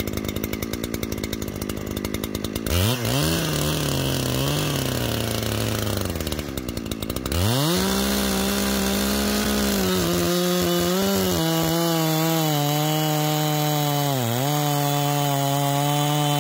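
Two-stroke chainsaw on a chainsaw mill, idling with a rapid beat, blipped up twice, then opened to full throttle about seven seconds in. From about ten seconds its note settles slightly lower and holds steady with a couple of brief dips, the saw under load as its ripping chain cuts lengthwise along the log.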